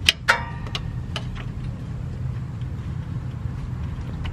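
Metal clicks as a claw-type oil filter wrench is fitted around a car's oil filter: two sharp clicks near the start, the second ringing briefly, then a few lighter ticks. A steady low rumble runs underneath.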